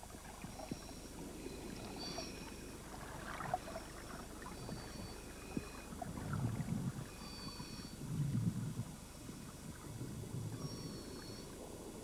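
Quiet underwater-style water ambience, with low swishing surges about two seconds apart in the second half and faint high tones coming back every two to three seconds.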